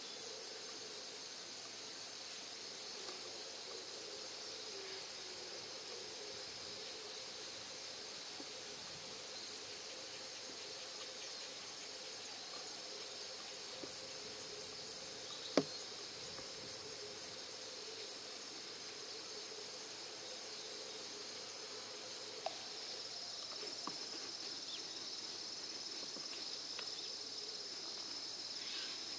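Insects singing: a high-pitched pulsing chirp, about four a second, over a steady high buzz. The chirping stops a few seconds before the end, and there is a single sharp click about halfway through.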